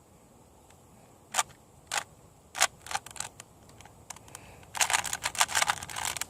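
Plastic clicks of a 3x3 Rubik's cube being turned by hand: a few single turns, then a quick run of turns from about five seconds in.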